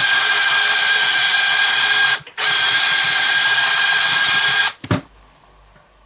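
A wire brush spun by a power tool, scrubbing the inside liner of a tyre clean around a tear before patching. It runs with a steady high whine and hiss, cuts out for a moment about two seconds in, runs again and stops near the end, followed by a short knock.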